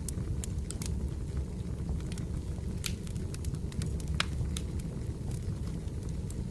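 Firewood burning: a steady low rumble of flames with many short, sharp crackles and pops at irregular intervals.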